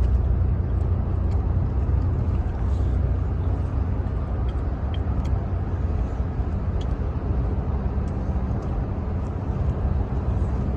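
Steady low rumble of a car driving along the road, heard from inside the cabin.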